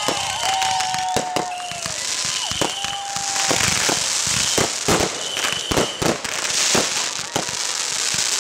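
Fireworks display: a rapid, irregular run of bangs and pops over continuous crackling, with several drawn-out whistles, the lower ones sinking slightly in pitch.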